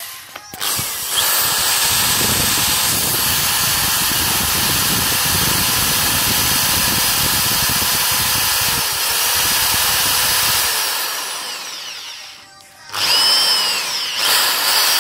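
Power drill boring a small hole through the black plastic body of a Safari snorkel. It runs steadily for about ten seconds, winds down, then starts again with a rising whine near the end.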